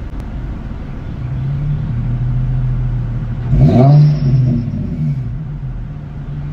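A warmed-up Infiniti G35 sedan's VQ35HR V6, exhaust fitted with Berk test pipes, idling, then revved once sharply about halfway through and dropping straight back to idle.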